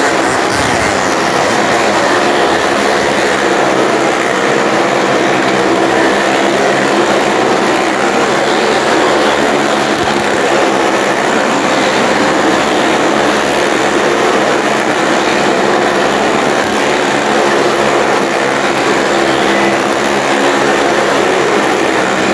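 Several motorcycle engines running hard together as the bikes circle the vertical wooden wall of a well-of-death drum, a loud, steady, unbroken drone.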